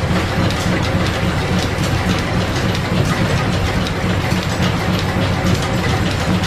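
Overhead line shafting and flat belts running, driving the shop's machines and a spinning lathe. A steady mechanical clatter with many small ticks over a low hum.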